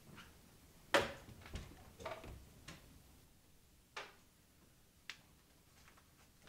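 Several light knocks and clicks at uneven spacing over quiet room tone; the loudest comes about a second in, and the rest thin out after about five seconds.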